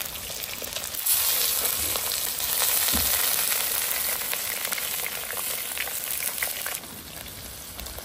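Small crucian carp and stone moroko frying in hot oil, with a steady sizzle. The sizzle gets louder about a second in and eases off near the end.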